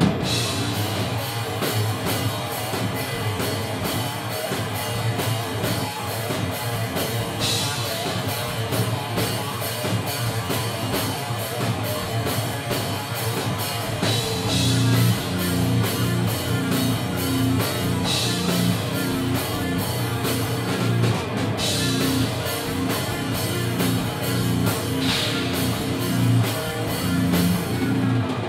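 Live rock band playing in a room: a Sonor drum kit keeps a steady beat with cymbal crashes several times, under electric guitar.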